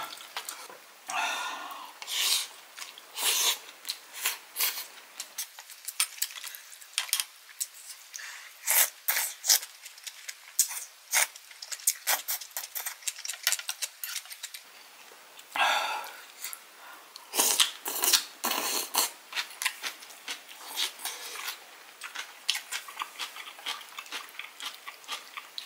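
Close-up eating sounds of a person eating hot dumpling hot pot: many short wet mouth clicks and smacks of chewing, with several brief slurps or breathy hisses.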